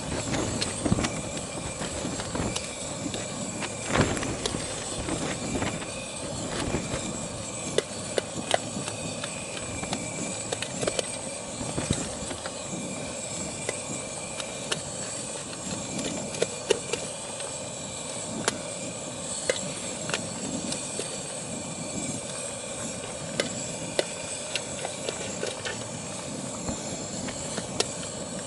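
Gas burner running with a steady rushing hiss, with knife and fork clicking against a plate now and then.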